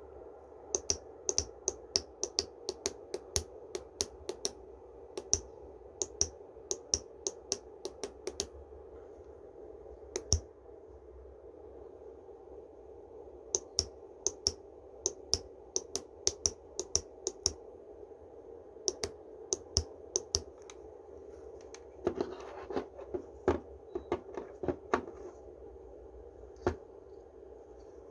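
Sharp clicks in irregular runs of about two or three a second, with pauses between runs, over a steady low hum.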